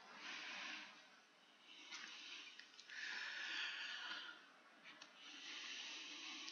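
A man's slow breathing picked up close on a headset microphone: about four faint, hissy breaths, with a few small clicks between them.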